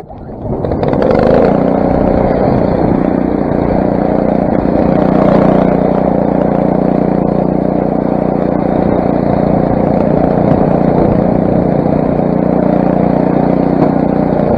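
Craftsman snowblower's 6 hp Briggs & Stratton engine starting with the choke on, catching about a second in and then running steadily at full throttle.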